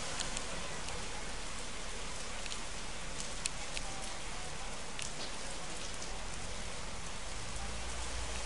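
Heavy rain falling on a flooded street, a steady hiss with a few scattered sharp taps of drops close by.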